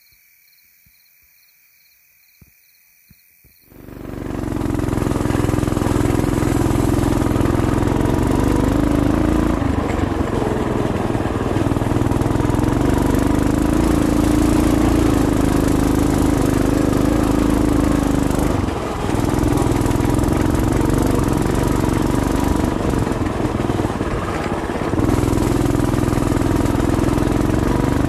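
Crickets trilling softly at first. About four seconds in, a Coleman BT200X mini bike's small single-cylinder engine takes over, running loud and steady under way along with wind and road noise. The engine note dips briefly twice in the second half as the throttle eases.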